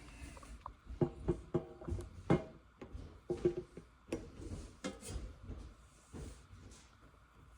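Kitchen utensils knocking and scraping, an irregular run of short clinks and knocks, some ringing briefly.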